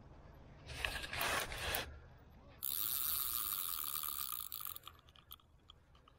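A large spinning reel on a carp rod giving a steady mechanical buzz for about two seconds, after about a second of rustling handling noise near the start.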